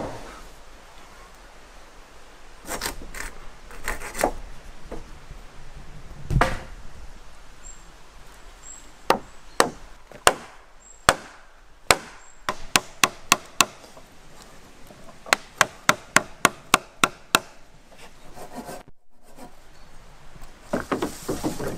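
Work on a timber roof frame: scattered knocks and some scraping, then a quick run of sharp wooden knocks, a few a second, as a wooden peg is hammered into a hand-drilled joint in a peeled-pole rafter.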